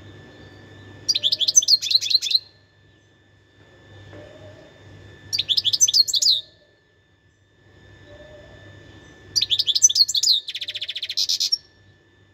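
European goldfinch singing: three short phrases of quick, high twittering notes a few seconds apart, the last one ending in a fast buzzing trill.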